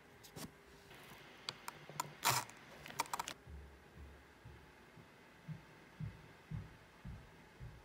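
A fork cutting into a slice of layered sponge cake in its paper wrapping. There is a scatter of sharp clicks and taps over the first three seconds or so, the loudest a little after two seconds, then several soft, low thumps about half a second apart.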